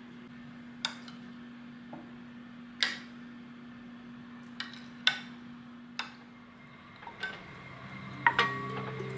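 Kitchen utensils and dishes knocking and clinking, about ten sharp separate taps spread over several seconds, over a steady low hum. Music comes in near the end.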